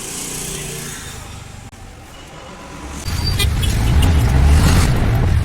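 Road vehicle noise, moderate at first. About three seconds in it turns much louder: a heavy low rumble with a rushing hiss, as of a vehicle on the move.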